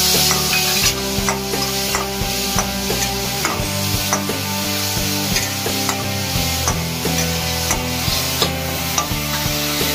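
Chopped onion sizzling in hot oil in a steel kadhai, stirred with a flat metal spatula that scrapes and taps against the pan again and again.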